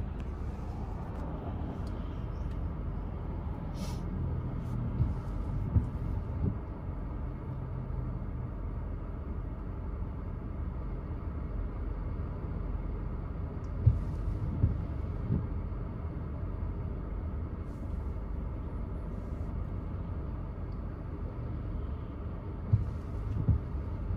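Steady low rumble inside a car idling at a standstill, with a few scattered short clicks and knocks.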